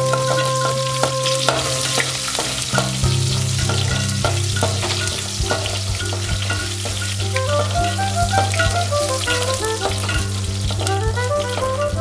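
Shallots, curry leaves and mustard seeds sizzling in hot oil in an aluminium pan, stirred with a perforated metal ladle that scrapes and clicks against the pan: the tempering for sambar. Instrumental background music plays underneath.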